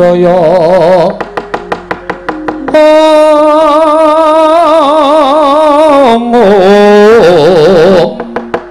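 Javanese sulukan (dalang's mood song) sung with wide vibrato, with one long held note in the middle. Rapid wooden knocks, the dalang's cempala, beat between the sung phrases at the start and near the end.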